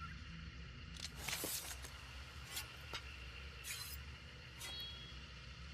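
A heavy knife making a series of short, sharp swishes and scrapes, about six in five seconds, over a low steady hum.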